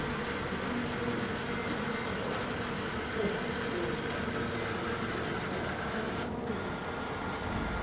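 Small electric motors and plastic gears of a LEGO Mindstorms RCX robot whirring steadily as it drives.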